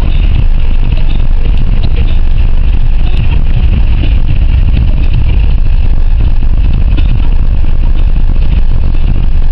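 A car being driven on the highway: a loud, steady rumble of engine and tyres with a constant hiss above it.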